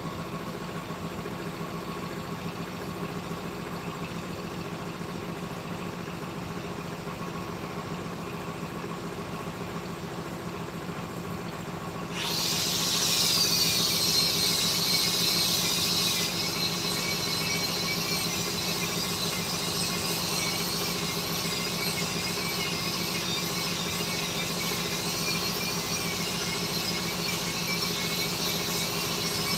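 A steady machine hum. About twelve seconds in, a high-pitched power tool joins it, its whine sinking in pitch over the first few seconds and then holding steady.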